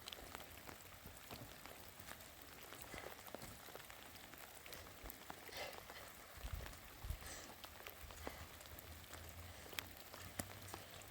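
Faint steady rain falling, with many scattered drops ticking.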